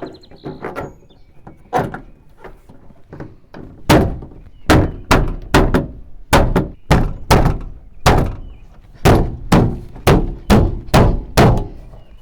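Hand banging on a 1979 Dodge D-150's passenger door panel to snap its retaining clips into the door: a few light knocks, then from about four seconds in a run of about fifteen heavy thumps, roughly two a second. The top of the panel won't seat flush.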